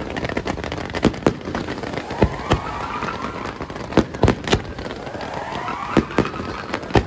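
Fireworks display: steady hiss and crackle from fountains on the water, broken by about ten sharp bangs, several in quick pairs. Twice a rising whistle climbs over the top, the second lasting about two seconds.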